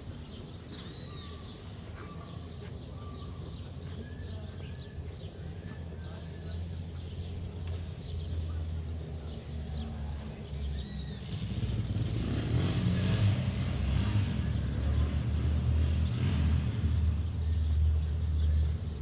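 Street ambience with a steady low rumble and birds chirping in the first few seconds, then passing motor traffic that grows louder from about eleven seconds in.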